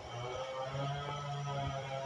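Background music with held notes over a steady low electrical hum.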